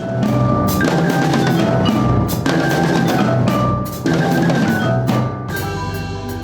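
Music driven by heavy drumming: bass and snare drums beating a dense rhythm under held melodic notes. The drumming thins out about a second before the end, leaving mostly the held notes.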